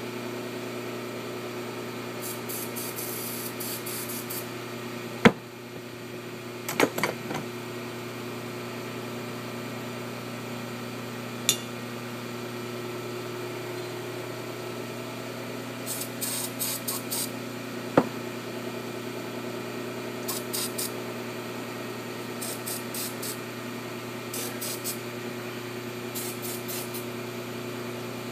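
Quick hissing spurts from a spray can, several in a row at a time, with a few sharp metal clicks and knocks, over a steady hum of shop machinery.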